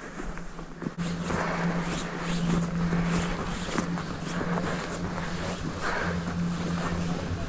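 Toboggan sliding fast over packed snow: a steady rushing scrape with a low drone from about a second in, and wind on the microphone.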